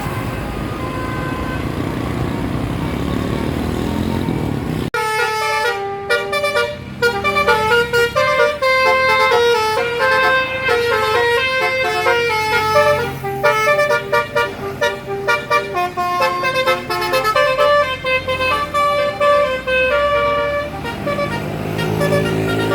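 Bus 'telolet basuri' musical horn playing a fast melody of many short notes for about fifteen seconds. It is preceded by about five seconds of steady road and engine noise that cuts off suddenly, and engine noise with a rising pitch returns near the end.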